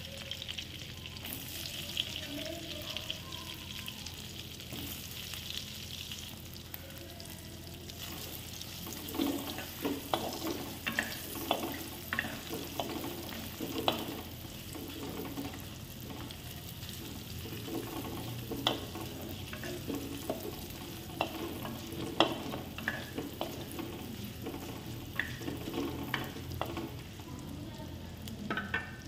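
Paneer cubes sizzling steadily as they fry in butter in a clay kadai. From about nine seconds in, a wooden spatula scrapes and knocks against the pot as the cubes are stirred.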